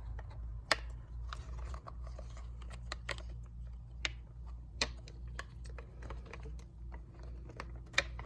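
Plastic parts of a console cup holder clicking and rattling as they are handled and fitted, with scattered sharp clicks, the loudest under a second in and others about four, five and eight seconds in.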